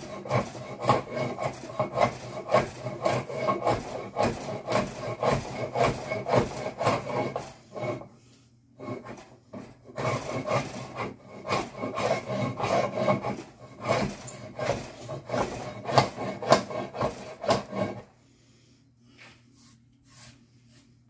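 A hand plane shaving along a laminated wooden bass neck blank in quick, repeated strokes, with a short break about eight seconds in. The strokes stop a few seconds before the end, leaving only a faint hum.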